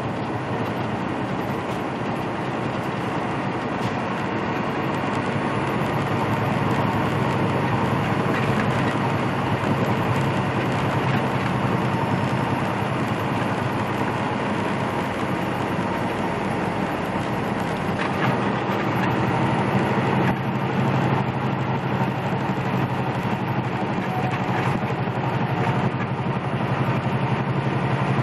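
Big-rig engine running at road speed with tyre and road noise, heard inside the truck's cab as a steady drone. The engine's hum rises slightly in pitch and grows a little louder about two-thirds of the way through.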